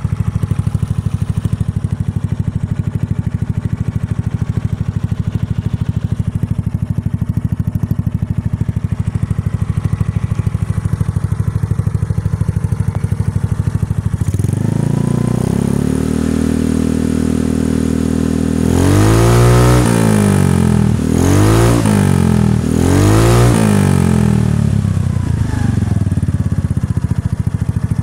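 Italika WS150 scooter's GY6 150cc single-cylinder four-stroke engine running through a Yoshimura TRS tri-oval carbon-fibre muffler. It idles steadily, rises to a faster steady speed about halfway through, then is revved three times in quick succession before dropping back to idle near the end.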